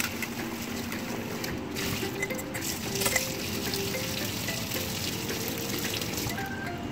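Kitchen tap running into a stainless steel bowl as sliced chicken is rinsed, with water splashing and dripping as the pieces are scooped out with a wire strainer. One brief knock about three seconds in.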